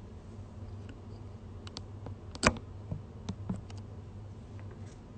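Fingers tapping on a smartphone held close to the microphone: a handful of light clicks and one sharper knock about halfway through, over a steady low hum.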